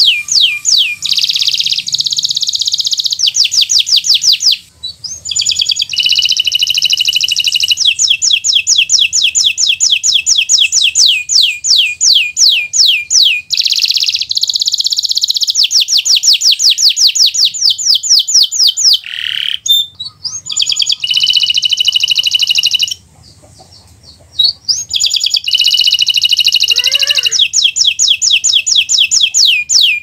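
Domestic canary singing a long, high song of fast repeated-note trills alternating with continuous rolls. It breaks off briefly about five seconds in and again around twenty-three seconds.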